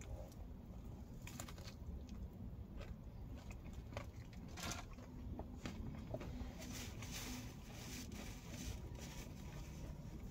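A person biting into and chewing breaded fried food close to the microphone: faint crunches and wet mouth sounds, with scattered light clicks.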